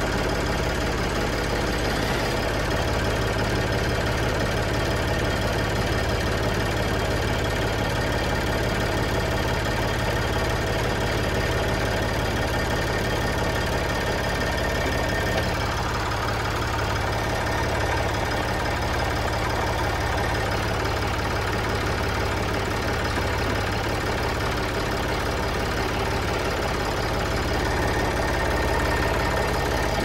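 Old Massey Ferguson tractor engine idling steadily.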